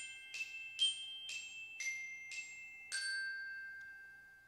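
A short outro jingle of bright, bell-like struck notes, about two a second, ending on a final note that rings on and fades away.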